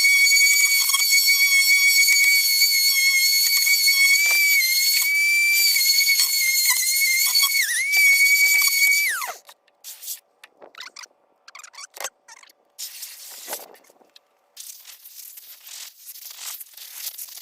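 A power sanding tool runs at speed while wet-sanding a plastic headlight lens with 2000-grit paper, giving a loud, steady, high-pitched whine. About nine seconds in it winds down and stops. Faint scattered rubbing and clicks follow.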